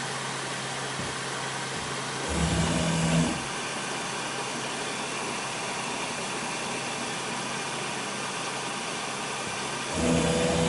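UP! Mini 3D printer's stepper motors whirring for about a second as the print head and platform move to a new calibration point, about two seconds in and again near the end, each time with a steady pitched tone. Underneath runs the printer's steady hum.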